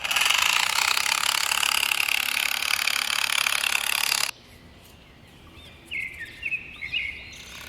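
A steady hiss of noise that cuts off suddenly about four seconds in, followed by a few short bird chirps.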